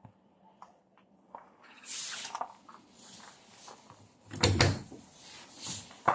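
Footsteps and knocks on the floor and entry steps of an old bus, with scattered light clicks and rustling, then heavy thuds about four and a half seconds in and again at the end.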